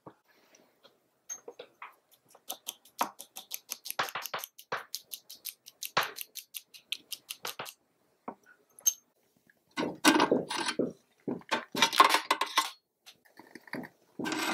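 Tiny wooden fork whisking a beaten egg in a small ceramic bowl: a fast run of light clicks against the bowl. About ten seconds in, louder and rougher bursts of noise from a neighbour break in.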